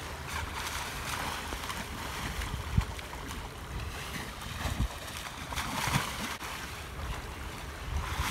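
Sea water washing and sloshing around a ship's bulbous bow, with wind rumbling on the microphone and a few low gusty bumps.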